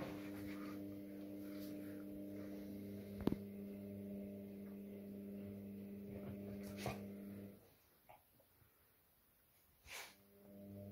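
Steady electrical hum with evenly spaced overtones, and a single sharp knock about three seconds in. The hum cuts out about two-thirds of the way through and comes back near the end.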